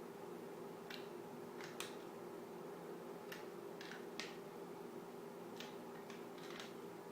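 Scattered sharp metallic clicks of a wrench tightening the exhaust manifold nuts on a Ford CVH engine, about ten at irregular spacing, over a faint steady hum.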